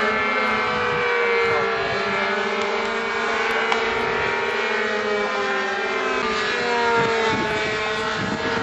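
Several radio-controlled combat model airplane engines buzzing at high pitch. Their overlapping notes waver up and down and cross one another as the planes dive and turn.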